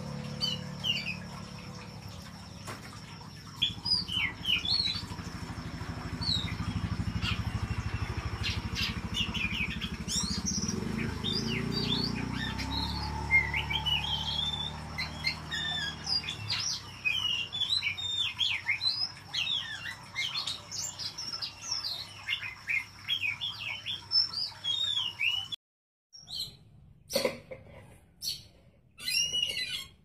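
Oriental magpie-robin (kacer) singing without pause: a fast, varied stream of chirps and whistles. A low steady hum runs beneath it for about the first half. Near the end the song cuts off abruptly and is followed by a few separate sharp calls.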